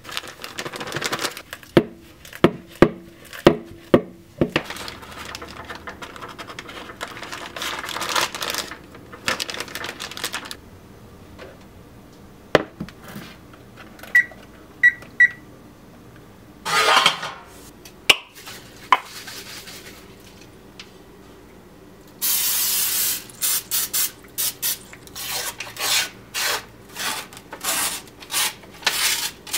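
Kitchen handling sounds: a plastic bag crinkling and rustling, knocks and clatter of a flat metal pan being set on a gas stove, three short high beeps in a quiet patch near the middle, a hiss lasting about a second and a half, then a run of light taps and clicks.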